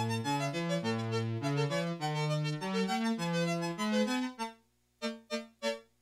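Yamaha PS-6100 electronic keyboard played with both hands, a melody over a moving bass line. The playing stops about four and a half seconds in, followed by three short, clipped notes.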